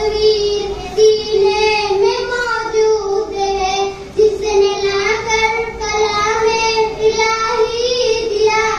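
Young girl singing a naat unaccompanied into a microphone, a single melodic line with long held notes that bend gently in pitch.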